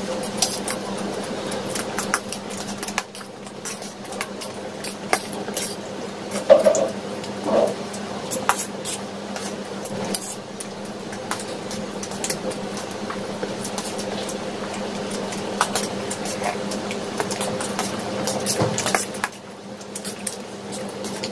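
Stainless steel forks clinking and scraping on stainless steel plates in quick irregular ticks as two people twirl and eat chow mein noodles, with mouth noises of eating in between. A steady low hum runs underneath.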